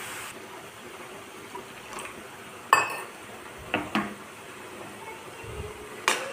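Steel mixer-grinder jar clinking a few times against metal as water is swirled in it to rinse out the leftover spice paste for the pan. A faint sizzle of masala frying in mustard oil stops just after the start.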